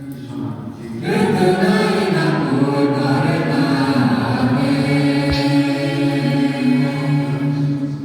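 Several voices chanting together in long held notes, a fuller phrase coming in about a second in.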